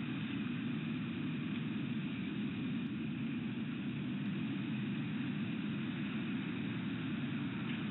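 Steady low rumble and hiss of outdoor background noise picked up by the nest camera's microphone, with no calls.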